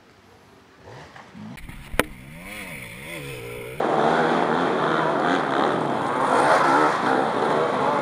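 Hard enduro dirt bike engines revving. One engine swells up and down in pitch, with a single sharp crack about two seconds in. Partway through, the sound jumps suddenly to a much louder, close engine at high revs.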